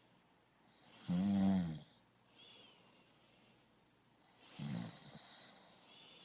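A person snoring: a loud, pitched snore lasting under a second about a second in, and a shorter, weaker one about four and a half seconds in, with faint breathing between.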